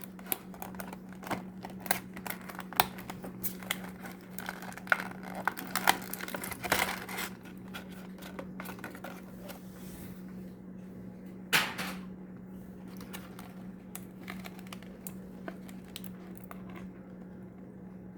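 Plastic toy-car packaging being handled: a run of crinkles, clicks and taps for the first several seconds, one louder crackle near the twelve-second mark, then fewer. A steady low hum runs underneath.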